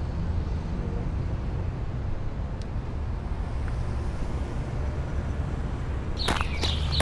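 A steady low rumble. About six seconds in, short bird chirps and sharp clicks break in over it.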